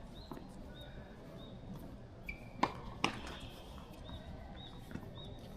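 Two sharp knocks about half a second apart, typical of a ball being struck and bouncing on a court. Faint, short high chirps repeat about twice a second underneath.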